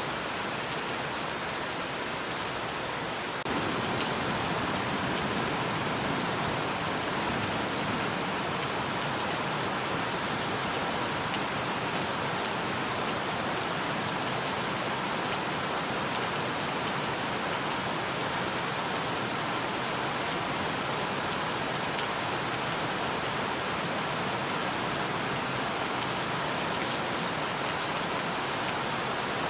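Steady rain falling, a dense even hiss with fine scattered drop ticks; it gets louder and fuller about three and a half seconds in, then holds steady.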